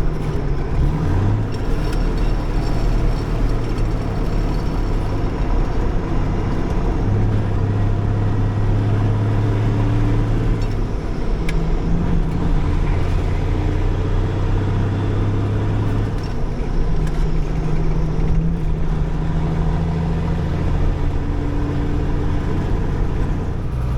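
Diesel engine of an old International Eagle semi truck running under way. Its pitch steps up and down several times as engine speed changes.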